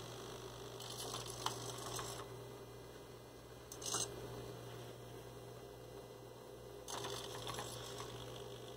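Robot monkey head's servo motors whirring in short bursts as the head turns to one side and back, about a second in, briefly near four seconds, and again about seven seconds in. A steady low hum runs underneath.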